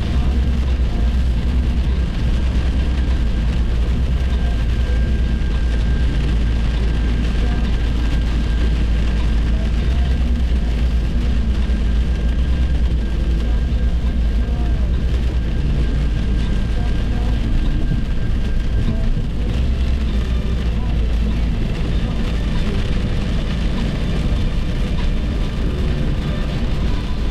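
Steady road and engine rumble inside a car's cabin at highway speed.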